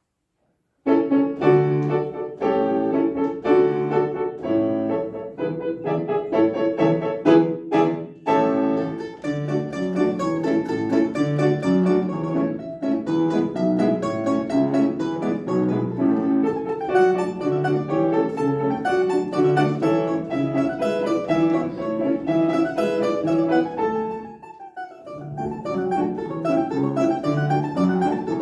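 Piano playing a lively piece, starting suddenly about a second in, with a brief break in the notes near the end.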